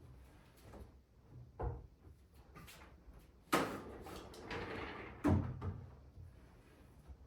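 Household handling sounds with no vacuum running: a soft knock about a second and a half in, a sharp clack a couple of seconds later followed by a second or so of rustling noise, then a heavy thump, the loudest of the three.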